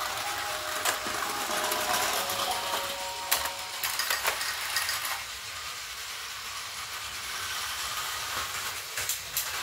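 Plarail toy train set running: a whir of small motors and gears with occasional clicks, and short electronic tones in the first half.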